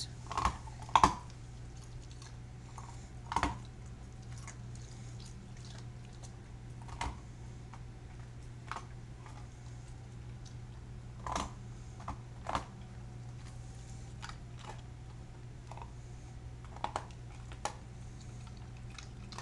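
Bull terrier crunching ice cubes in her teeth. The crunches are sharp and irregular, a second to several seconds apart, and the loudest pair comes about a second in. They sit over a steady low hum.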